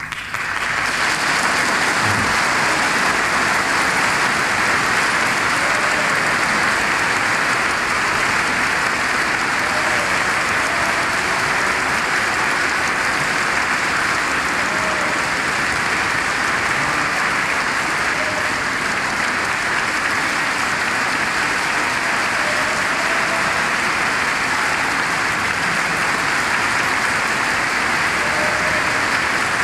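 Live opera-house audience applauding at the end of an aria. The applause breaks out suddenly and goes on loud and steady.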